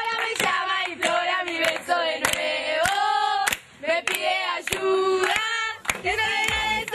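A group of girls singing together and clapping their hands along, with a short pause a little past three seconds in.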